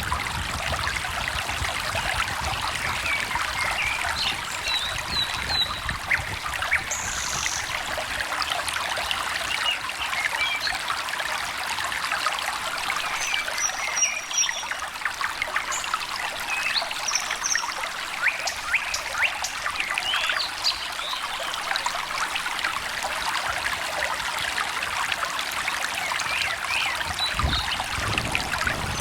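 Small stream trickling and babbling steadily, with a few faint, brief bird chirps scattered over it.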